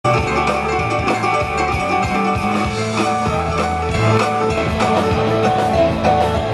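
Rock music with electric guitars over a drum kit, at a steady level.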